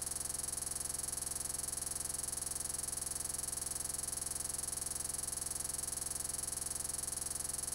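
Steady electronic buzz and hiss with a strong high whine and a fast, even flutter, unchanging throughout: digital glitch noise from a corrupted recording.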